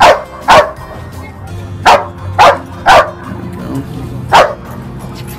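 A large shepherd-type dog barking six times in sharp, loud single barks at uneven spacing, excited barking worked up by its handler with a ball.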